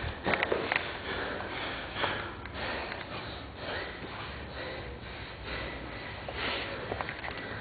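Jiu-jitsu grapplers breathing hard and sniffing through the nose mid-roll, in repeated swells. A few sharp knocks about half a second in.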